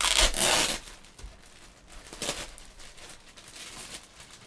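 Packaging rustling as a signed jersey is unwrapped and handled: one loud rustle lasting under a second at the start, then softer rustles about two seconds in and near the end.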